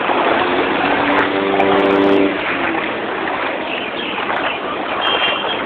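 Vehicle noise and the wash of water as traffic moves through a flooded street. A steady hum with overtones, like an engine, sounds from about half a second to two seconds in.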